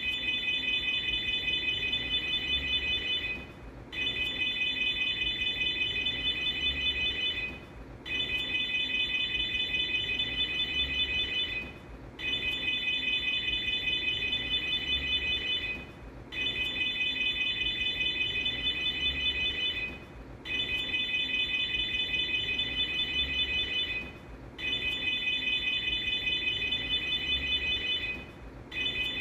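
FKS aftermarket car alarm siren on a Fiat Uno sounding: a high, fast-pulsing tone in repeated blasts of about three and a half seconds, each followed by a brief break, seven times over.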